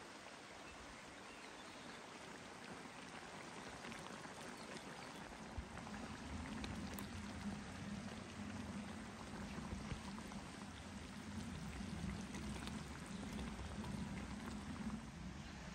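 Beef stew sizzling and bubbling in a pan over the fire, with fine crackling throughout; from about six seconds in it gets louder and fuller as the meat is stirred with a wooden spatula.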